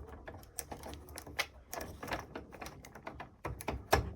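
Plastic wire connectors being pushed onto the solenoid terminals of a washing machine's water inlet valve: a run of irregular small clicks and rattles, with two sharper clicks near the end as connectors snap into place.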